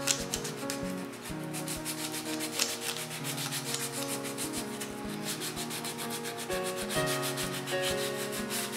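Sandpaper rubbed by hand in quick back-and-forth strokes over the bocote wood handle of a full-tang knife.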